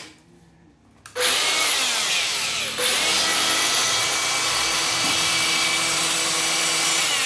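Makita GA402D 18V cordless angle grinder with a carbon-brush motor, run with no load: it spins up about a second in, dips briefly and picks up again, then runs steadily at full speed. It starts to wind down right at the end.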